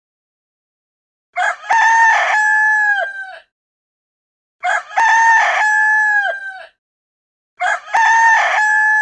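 Rooster crowing three times, evenly spaced about three seconds apart, each cock-a-doodle-doo about two seconds long: a short opening note, then a long held note that drops in pitch at the end. The three calls are alike, as if the same crow were repeated.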